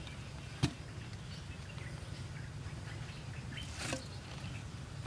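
Hand work on a dirt floor with a wooden stick: one sharp knock just under a second in, then a rustling scrape near four seconds, over a steady low background rumble.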